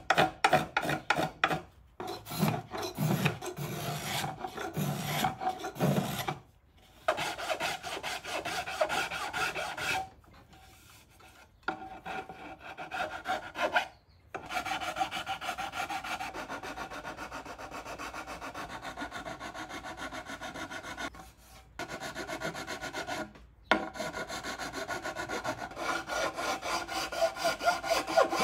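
A hand file rasping back and forth across the curved end-grain edge of a maple and cherry cutting board. It goes in runs of quick, repeated strokes with short pauses between them.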